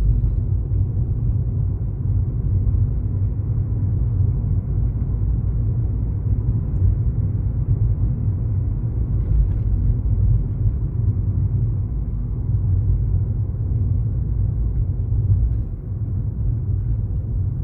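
Steady low rumble of a car's engine and tyre noise heard from inside the cabin while driving.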